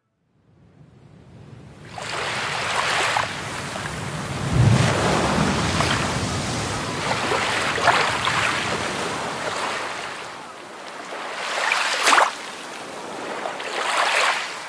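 Ocean waves washing in, surging and ebbing every few seconds, with a deeper low rumble in one surge about four to five seconds in.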